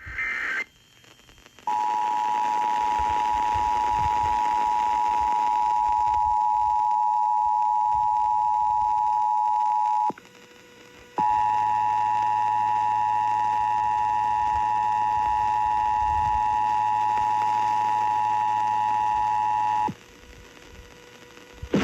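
Emergency Alert System two-tone attention signal (853 Hz and 960 Hz sounded together), a steady harsh tone held for about eight seconds. It breaks off for a second and starts again for about another eight seconds, the second run with a faint low hum under it. It opens with a short burst of higher EAS data tones.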